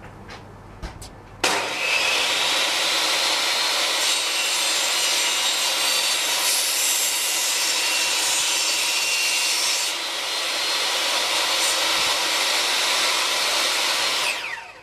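Titan TTB674TAS 254 mm table saw running and cutting wood. The sound starts abruptly about a second and a half in and holds steady, and near the end the blade's whine falls in pitch as it spins down.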